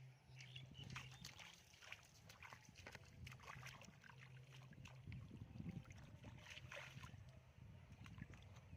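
Faint sloshing and splashing of shallow water, with scattered small clicks and a faint low hum that comes and goes.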